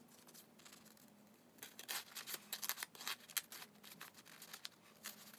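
Clear plastic binder sleeve rustling and scraping as a photocard is pushed into its pocket, a quick run of scratchy clicks through the middle. A faint steady low hum sits underneath.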